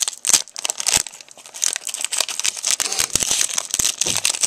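Foil trading-card booster pack being torn open and crinkled by hand, an irregular run of sharp crackles and rustling.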